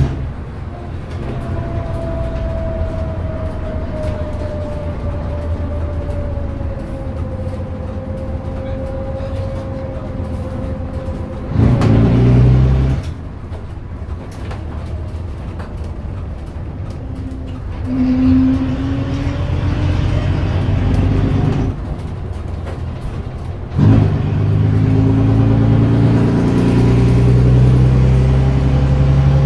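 Leyland O.680 six-cylinder diesel engine of a Bristol RELL6L single-deck bus, heard from inside the saloon while under way: very loud, with a steady whine that slowly falls in pitch. It pulls harder twice, with a sharp rise in loudness a little before halfway and again near the end.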